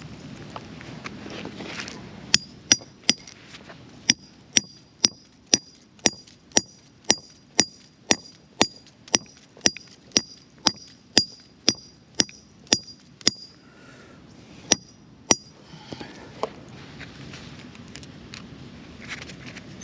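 Hammer driving steel wedge anchors into holes drilled in concrete: a steady run of sharp metal-on-metal strikes with a ringing ping, about two a second, then a short pause and two more blows. A single duller knock follows.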